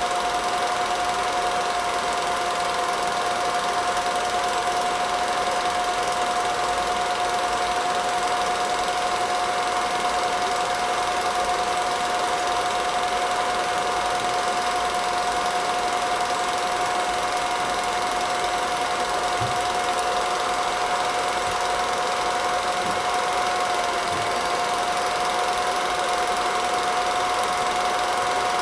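Film projector running: a steady mechanical whirr with a constant high whine.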